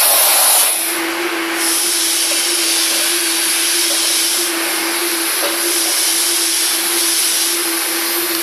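Steam cleaner running, its wand jetting steam onto a carpet: a loud hiss that eases about a second in, then a steady hum with continuing hiss.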